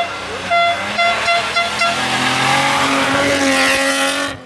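Historic rally car's engine working hard as the car comes past, its pitch rising, with a horn sounding about six short toots over the first two seconds. The sound cuts off abruptly near the end.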